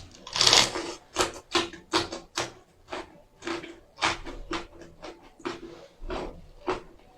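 Close-up eating sounds: irregular wet chewing smacks and clicks, a few each second, with a longer noisy burst about half a second in.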